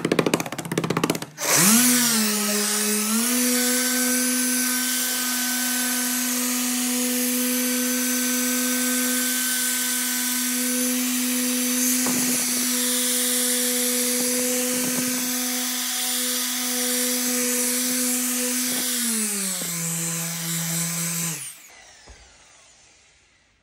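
Machine polisher with a foam pad running on car paint, polishing out swirl marks. After a short start-up burst it runs up to a steady whine and holds speed. Near the end it drops to a lower pitch, then winds down and stops.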